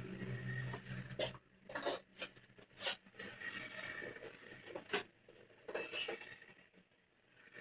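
Light metal clinks and knocks, about half a dozen sharp ones spread through, typical of tools and copper pipe fittings being handled during plumbing work.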